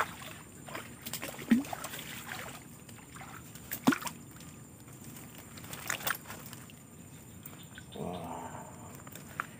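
A hooked snakehead splashing at the water surface as it is pulled on a fishing pole line, followed by light sloshing and a few sharp taps.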